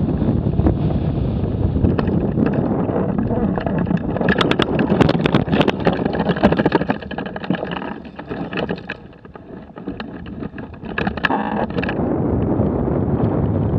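Wind buffeting the microphone with a low rumble, broken by a run of sharp crackling clicks about a third of the way in. The wind eases off past the middle, then rises again near the end.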